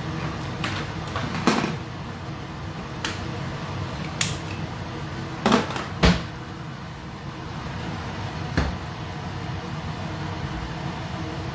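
A handful of short, sharp knocks and clicks of things being handled around the stove, the loudest two close together about five and a half and six seconds in, over a steady low hum.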